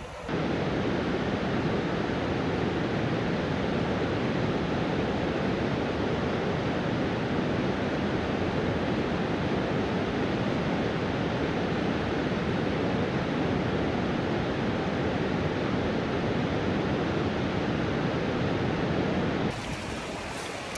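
Steady rushing of whitewater river rapids, a dense, even roar of water over rock. Near the end it gives way to a quieter rush of shallower water.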